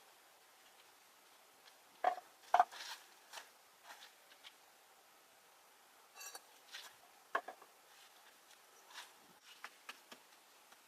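Scattered clinks and knocks of dishes and utensils being handled, with two louder ringing clinks about two seconds in and another a little past seven seconds, light taps between.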